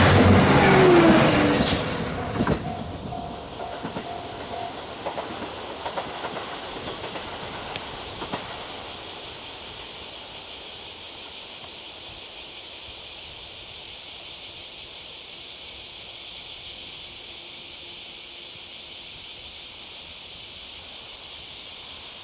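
A JR Hamakaze diesel limited express, a KiHa 189 series railcar, passes over a level crossing with wheel clatter for the first couple of seconds, its pitch sliding down as it moves off. The crossing alarm rings on briefly and stops about four to five seconds in, leaving a steady high hiss.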